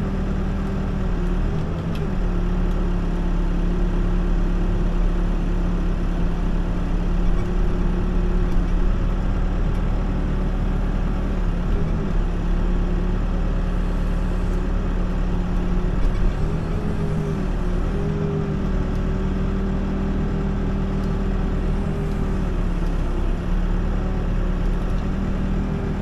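Backhoe's diesel engine running steadily, heard from inside the cab, its pitch dipping briefly a few times.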